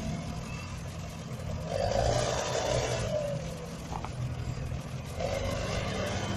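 Diesel engine of a JCB backhoe loader running steadily, growing louder for about a second around two seconds in and again near the end as the machine works.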